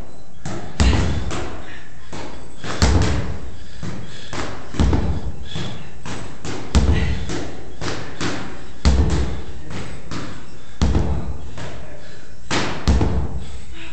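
Sledgehammer striking a large rubber tire, a dull thud about every two seconds, seven strikes in a steady rhythm.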